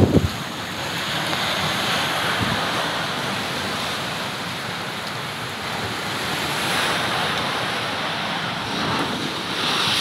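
Rough storm surf washing and breaking over the shallows, a steady rushing that swells and eases slowly. Wind buffets the microphone with a brief low rumble right at the start.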